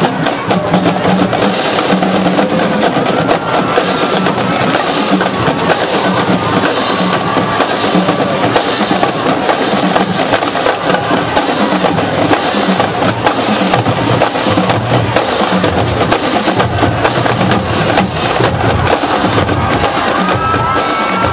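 Massed marching band of about 438 musicians playing, with drums keeping a steady beat under the melody.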